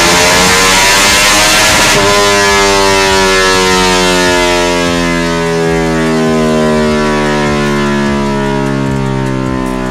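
Yamaha MX King engine, built to 180cc for prostreet drag racing, at the end of a full-throttle dyno pull. It runs at top revs, the throttle is shut about two seconds in, and the revs then wind down with a steadily falling pitch.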